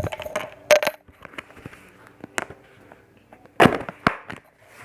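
Slime being played with by hand: a series of sharp pops, clicks and crackles, with the loudest cluster of pops about three and a half seconds in.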